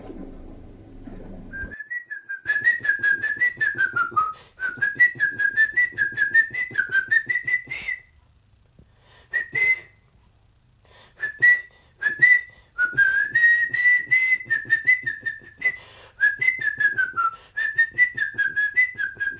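A person whistling a melody, a single clear tone wavering up and down in short pulsed notes. The phrases break off briefly about 8 and 11 seconds in.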